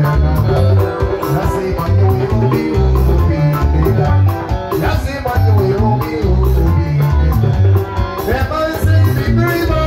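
Live band music: a drum kit with steady cymbal strokes, electric guitars and a heavy, rhythmic bass line.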